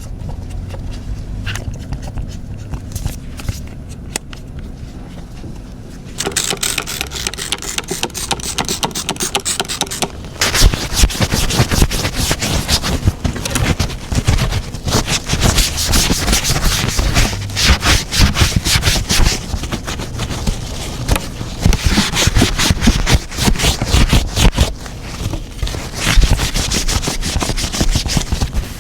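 A low hum, then from about six seconds in, rapid, continuous rubbing and scraping on a hard surface. It grows louder about ten seconds in.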